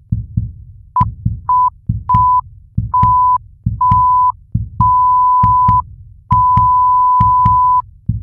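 Intro sound effect of heartbeat-like low thumps in pairs, under a steady high electronic beep that comes again and again, each beep longer than the last until the final one lasts about a second and a half.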